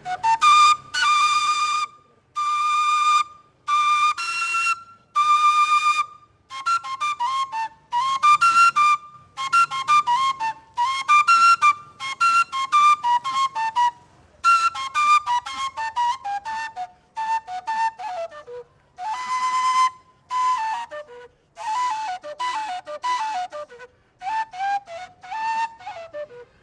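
Traditional Colombian gaita, a cane duct flute, played solo: four long held notes, then a melody of quick phrases that often run down in pitch, with short breaks for breath.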